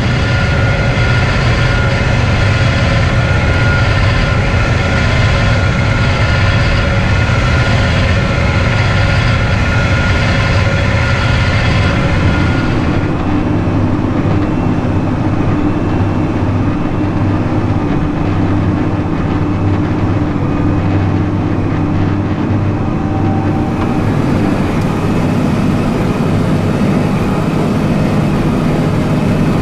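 John Deere 7310R tractor running steadily under load while pulling a New Holland BigBaler 1290 Plus baling straw. The sound changes about halfway through, with the higher whine dropping away.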